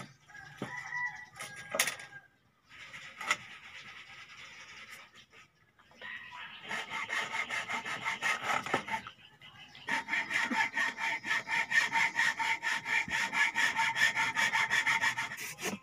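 Hacksaw cutting across a dry bamboo pole with quick back-and-forth strokes, about three a second. A few light knocks come first, the sawing starts about six seconds in, and it pauses briefly about a second before starting again.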